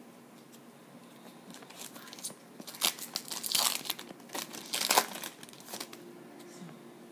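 Foil wrapper of a trading-card pack crinkling and tearing as it is opened, in a cluster of crackly bursts from about three to five seconds in.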